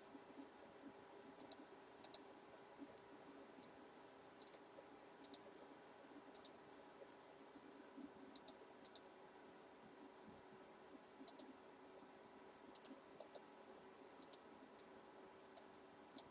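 Near silence with faint, scattered clicks, some in quick pairs, over a faint steady hum.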